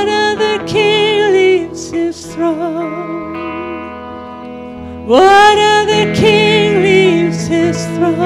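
Live worship music: a woman sings long, held phrases with vibrato over sustained keyboard chords and bass guitar. Her phrases scoop up into the note at the start and again about five seconds in.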